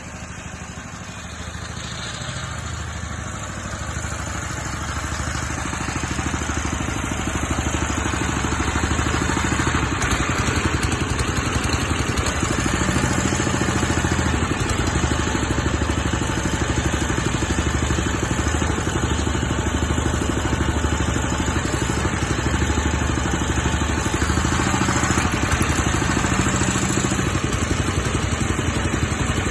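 Engine of a hydraulic soil-boring rig running steadily, growing louder over the first several seconds and then holding level.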